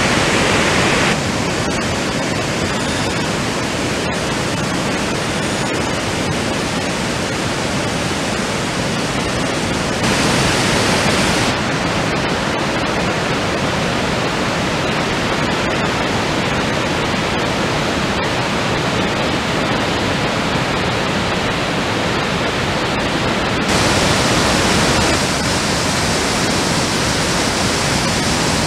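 Floodwater in a swollen river rushing over rapids: a steady, loud rush of white water. It gets briefly louder and brighter about ten seconds in and again near the end.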